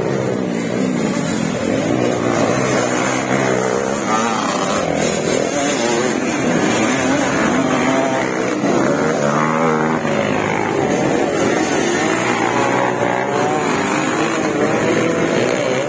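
A pack of motocross dirt bikes revving and accelerating past, many engines overlapping, their pitches rising and falling as the riders work the throttle and shift. The noise swells at the start and stays loud.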